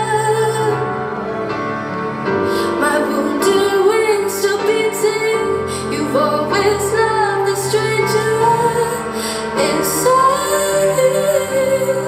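Recorded song with a woman singing long, sustained lines over instrumental accompaniment.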